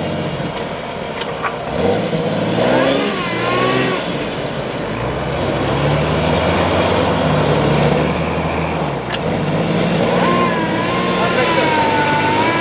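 Jeep Cherokee XJ engine revving under heavy load as the truck forces its way through deep snow, its pitch climbing and falling several times.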